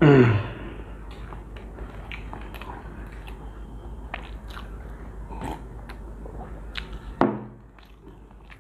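People eating kacchi biryani: chewing and biting, with small scattered clicks and crackles. A loud falling-pitched voice-like sound comes right at the start, and a shorter one about seven seconds in.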